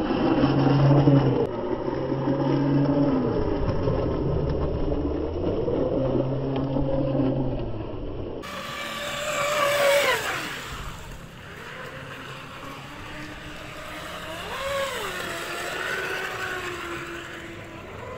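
Radio-controlled model boat's motor running on the water, its pitch rising and falling with the throttle and passes, with a clear falling pitch about ten seconds in.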